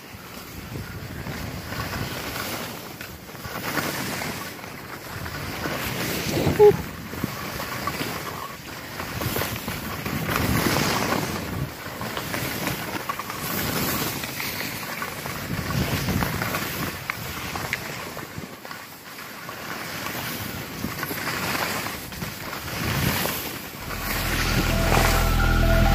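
Skis hissing through soft snow with wind rushing over the microphone, swelling and fading every second or two. Music comes in near the end.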